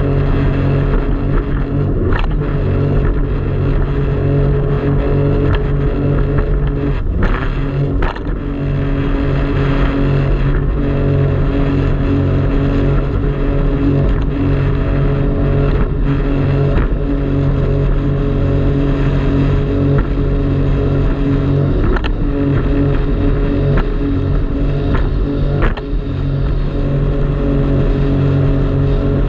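Jet ski engine running steadily under way, with wind and water noise; the engine note shifts a few times.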